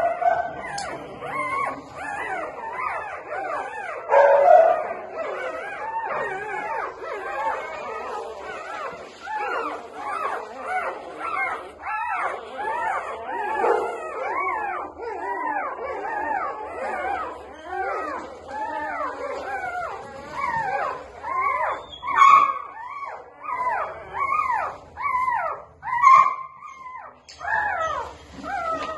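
Newborn Labrador puppies crying and whimpering: many short, high squeals that rise and fall, overlapping one another, with a few louder squeals near the end.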